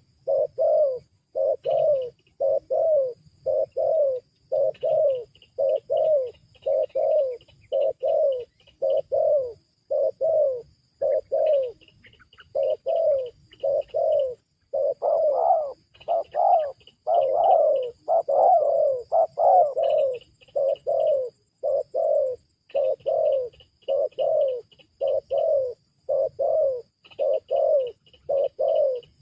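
Spotted dove (tekukur) cooing over and over in an even rhythm, about one and a half to two notes a second with a couple of short pauses. Short runs of high chirps from another bird come in between.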